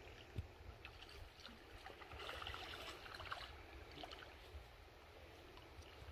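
Faint riverside ambience: light water noise with wind rumbling on the microphone, and a short crackling rustle about two seconds in.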